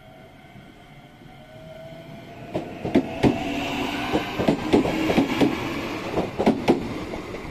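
Shizuoka Railway 3000-series electric train accelerating past close by. A motor whine rises slowly in pitch, then from about two and a half seconds in the wheels clack sharply over rail joints, a dozen or so strikes as the cars go by over a steady running rumble.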